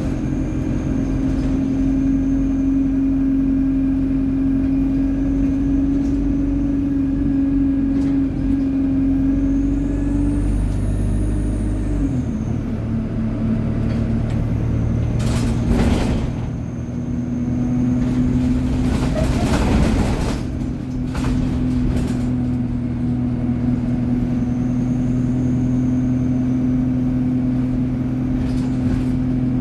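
ADL Enviro 200 single-deck bus with an Allison automatic gearbox, running with a steady drone and a strong whine, and faint high turbo whines that rise and fall twice. About twelve seconds in, the deep drone drops away and the whine dips. Two bursts of air hiss follow, about fifteen and nineteen seconds in.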